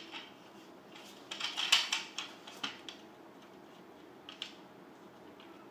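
Plastic toy Tyrannosaurus rex stomped along a tabletop in a few quick clacks: a cluster about a second and a half in, one more a second later, and a couple of fainter taps near the end.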